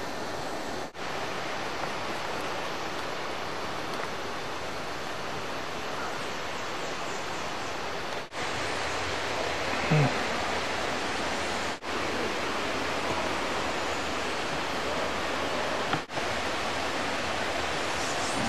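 Steady rush of flowing river water, an even roar broken by four momentary drops. About halfway through there is a brief low voice-like sound.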